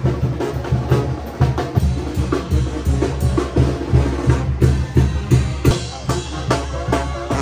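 Procession band music driven by bass drum and snare, with strong beats repeating and other instruments playing underneath.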